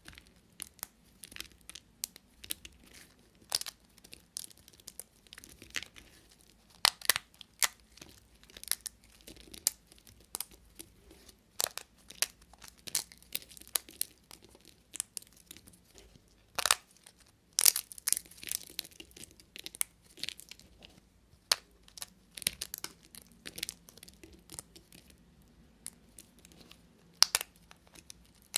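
Knife cutting through bars of soap, giving a run of crisp, irregular crackles and snaps, a few louder ones standing out among many small ones.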